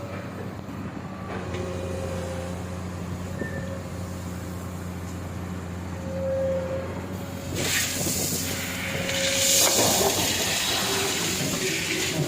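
Excavator's diesel engine running steadily with a low hum, a faint squeal coming and going, and a loud hiss that sets in a little past halfway.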